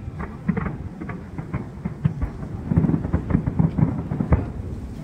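Aerial fireworks going off in a rapid string of booms and crackling bangs, thickest in a dense volley past the halfway point, then thinning out near the end.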